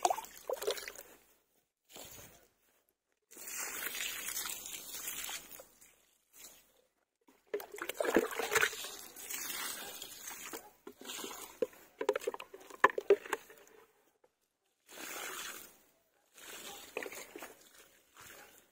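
Water sloshing in a bucket as a plastic jug is dipped in and poured out onto the soil, in about five separate pours with short quiet gaps between. A few sharper knocks come in the middle.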